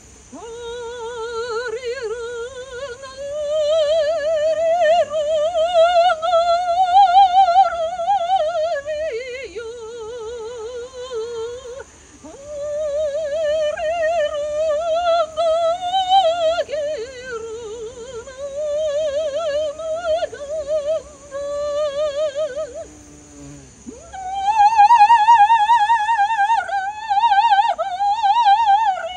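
Background music: a slow solo melody of long, wavering held notes, sung or played with strong vibrato.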